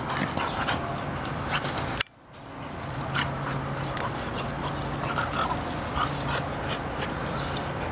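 Two American Bulldogs play-wrestling, with scuffling and short dog vocal noises. The sound drops out abruptly for a moment about two seconds in, then returns.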